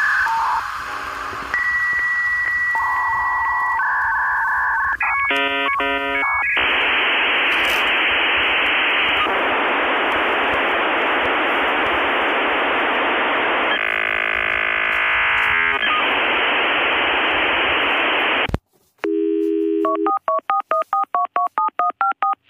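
Dial-up modem connection sound as heard down a phone line. It starts with beeping handshake tones, then about twelve seconds of loud hiss that cuts off sharply. Near the end comes a brief low dial tone and then a quick run of touch-tone dialing beeps.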